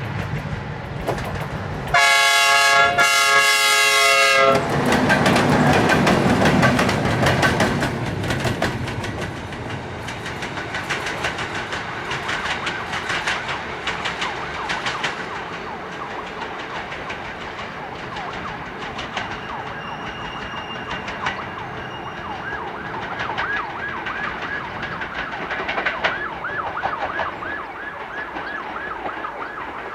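Romanian EA-class electric locomotives (EA-778 and EA-630 running together) sounding the horn in two loud blasts, then clattering past over jointed rail, with a run of sharp clicks as the wheels hit the rail joints. Near the end a fast-wavering, siren-like tone rises above the clatter.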